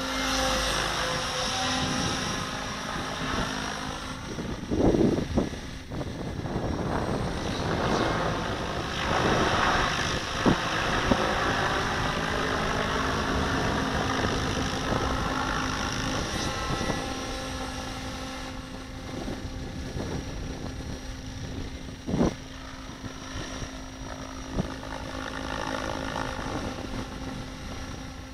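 RC helicopter flying aerobatics: rotor blade noise and motor whine rising and falling in pitch as it manoeuvres and passes, with a few sharp thumps.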